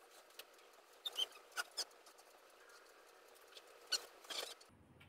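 A handful of faint short squeaks and rustles from a stirring two-month-old baby and the bedding around it. They come in two small clusters, about a second in and again near the end.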